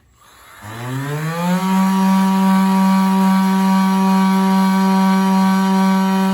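Electric power sander switched on with a click, winding up in pitch over about a second, then running at a steady high whine.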